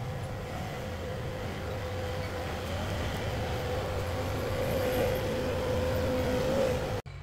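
Compact track loader with a forestry attachment driving along a dirt trail: its diesel engine runs steadily with a steady whine over a low rumble, growing a little louder, then the sound cuts off suddenly near the end.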